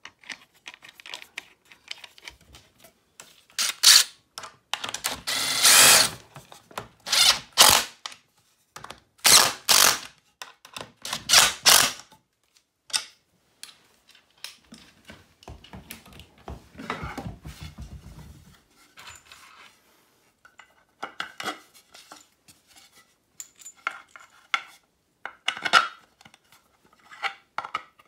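Nuts being run down and tightened on the carriage bolts of a wooden drafting table's leg brackets: a run of loud, short rasping bursts about four seconds in, then lighter rattles, clicks and knocks as the hardware, tools and wooden parts are handled.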